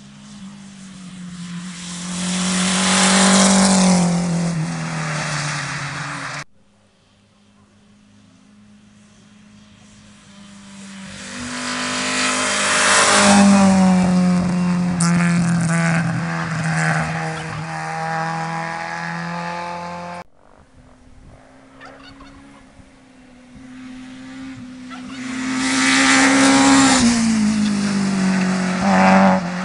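Three rally cars pass one after another at speed, each engine note swelling to a peak and dropping in pitch as the car goes by. The first two passes cut off suddenly.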